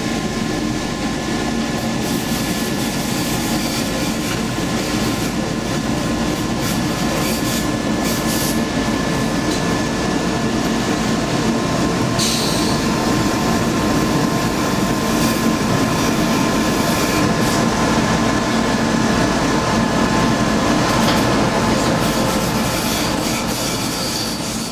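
Rhaetian Railway narrow-gauge electric train running along the line, heard from inside the driver's cab: a steady rumble of wheels on rail, with a few short high squeals from the wheels.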